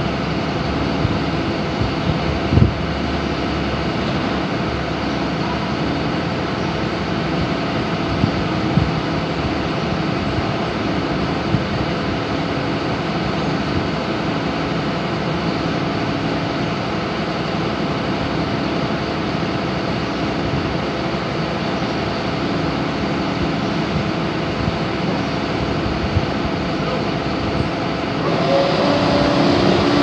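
SANY hydraulic excavator's diesel engine running steadily as it digs, with a few short knocks. Near the end the engine speeds up and grows louder under load.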